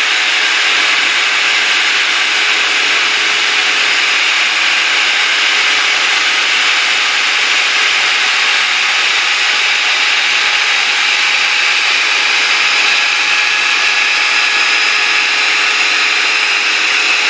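Home-built CNC router running steadily, its spindle cutter milling lettering into a workpiece: an even, continuous cutting noise with a faint steady whine that doesn't change.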